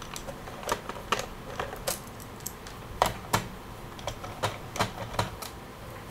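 Light, irregular clicks and taps of a small screwdriver and loose screws against a laptop's plastic bottom case as the case screws are taken out one by one.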